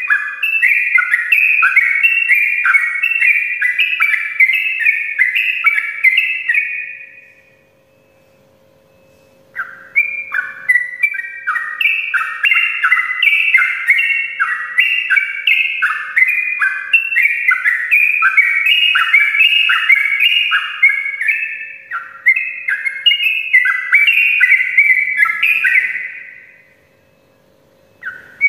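Yellow-vented bulbul (trucukan) singing a long, rapid 'ropel' run of bubbling, chattering notes. The song fades out about seven seconds in, breaks off for about two seconds, resumes, and fades and restarts again near the end.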